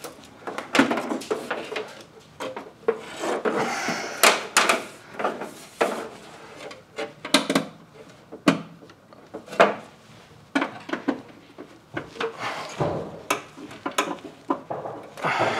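Irregular scraping, rubbing and short knocks as a stiff green-and-yellow earth cable is bent and worked into the earth bar of a steel distribution board.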